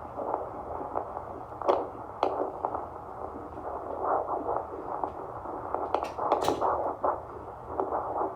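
Handheld fetal Doppler's speaker giving a muffled hiss with the fast pulsing whoosh of a fetal heartbeat. A few sharp scratches come through, about two seconds in and again about six seconds in.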